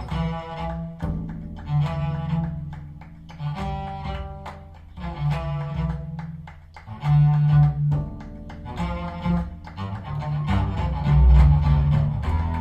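Instrumental music with string instruments, played back through Eternal 8.3 three-way bookshelf speakers. A melody of distinct pitched notes runs over strong deep bass notes, and the bass swells loudest about seven seconds in and again near the end.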